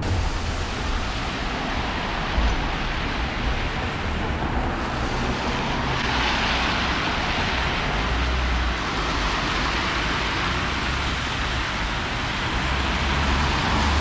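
Road traffic on a wet road: a steady hiss of tyres on wet tarmac, with low engine rumble swelling as vehicles pass.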